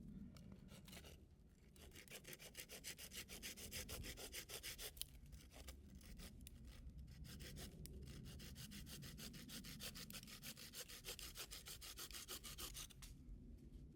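Rapid, even scraping or rubbing strokes, about six a second, with a brief break about halfway through.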